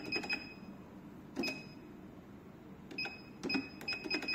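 Keys on a 686A electronic cash register being pressed, each press giving a plastic click and a short high beep. The presses come in quick runs and single taps as PLU items are rung up, with no receipt printing.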